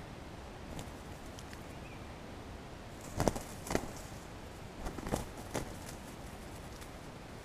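Wild junglefowl cocks fighting: several short, sudden flurries of wing-beating and scuffling in dry leaves, starting about three seconds in, over a steady hiss.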